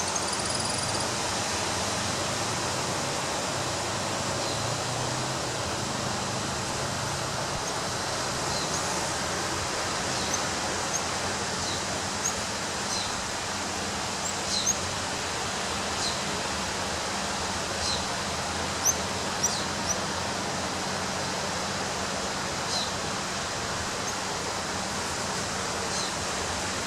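Ocean waves breaking on a beach make a steady wash of surf. Short high bird chirps come now and then through the second half.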